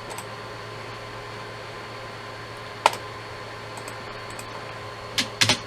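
Steady fan-like hum with a faint whine, broken by one sharp click about three seconds in and a quick cluster of clicks near the end.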